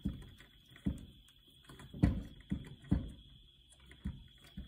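A small L-shaped Allen key turning and being re-seated in the lid bolts of a plastic EFI fuel-pump sump housing. It makes about eight irregular light knocks and clicks.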